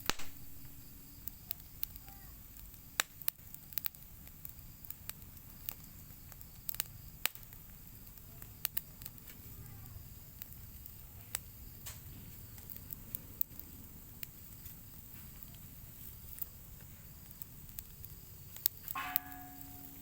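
Open fire crackling, with scattered sharp pops over a low rumble as Oroxylum pods roast on it. A short pitched, voice-like tone comes in near the end.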